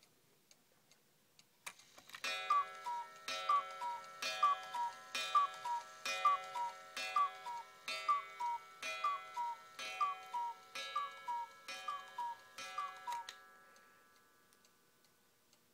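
Anton Schneider model 86/9 Black Forest cuckoo clock with a Regula one-day movement calling the hour: a falling two-note cuckoo call repeated about a dozen times, roughly once a second, each call opening with a clack of the mechanism. The movement ticks faintly before the calls start and after they stop.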